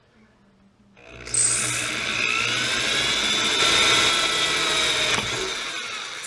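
Electric drill running with a small bit cutting into the steel center rib of a double-barreled shotgun, drilling the hole for a bead sight. It starts about a second in, runs steadily with a whine for about five seconds, and stops just before the end.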